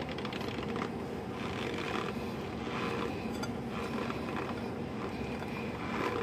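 Close-up chewing and crunching of mouthfuls of packed white powder, coming in short scratchy spells every second or so over a steady low hum.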